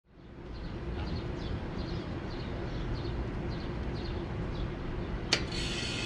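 1991 Trane XE1000 Weathertron heat pump outdoor unit starting up in cool mode: a sharp click about five seconds in, typical of the contactor pulling in, then the compressor comes on with a steady whine. Before that, a low steady background with faint bird chirps.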